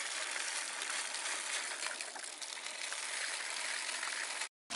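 Steady rushing of running water, cut off abruptly near the end.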